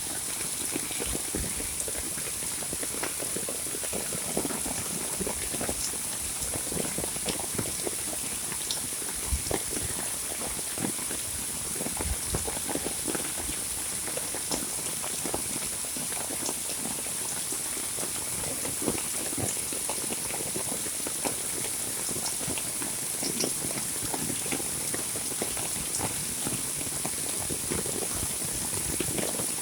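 Heavy monsoon rain falling steadily, with countless individual drops splashing close by and a steady high hiss above them.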